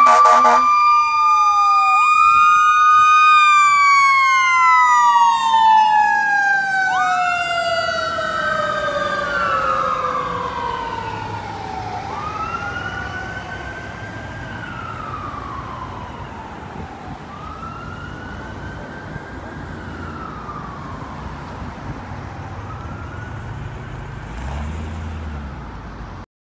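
Fire truck sirens wailing, with a horn blast that ends just after the start. Several sirens sweep slowly up and down, then settle into slow repeating wails that fade steadily as the trucks drive away.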